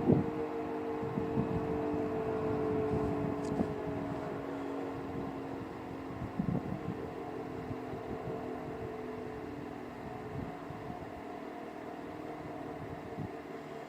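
ACA P-50 two-tone rotating warning siren sounding a steady dual-note tone that fades over the first several seconds. Wind gusts buffet the microphone throughout.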